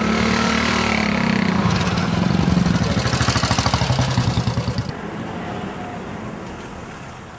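A vehicle engine running while under way, a loud low drone with a rapid pulsing beat. About five seconds in the higher part of the sound drops away and it becomes quieter.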